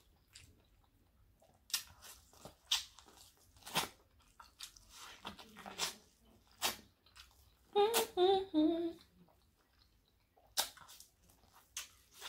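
Close-up eating sounds from a seafood boil: scattered sharp clicks and crackles of crab shells being cracked and picked, and of chewing. About eight seconds in there is a short hummed "mm-mm" that steps down in pitch.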